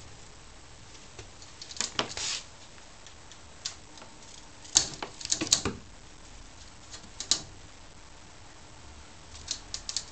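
A cat's claws scratching and batting at a mesh window screen, in short bursts of quick ticks and rattles, the busiest bunch about five seconds in.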